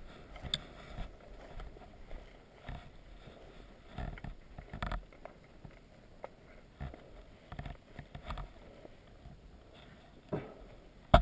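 Irregular footsteps and rustling of a person moving over rough ground and through brush, with one sharp, loud snap near the end.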